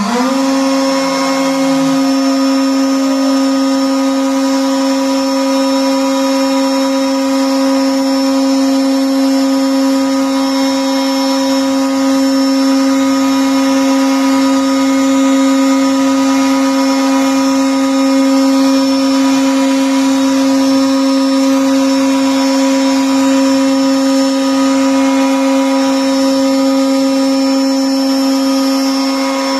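High-speed spindle motor of a CNC door lock and hinge routing/drilling machine running at a steady speed, giving a high, even whine with no change in pitch.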